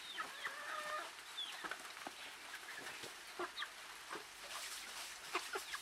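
Chickens clucking quietly, a string of short scattered calls.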